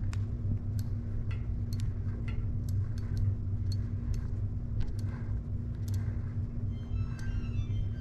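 Light metallic clicks and ticks of a bicycle freewheel being unscrewed off the rear hub by hand, one or two a second, with a quick run of small ringing ticks about seven seconds in, over a steady low hum.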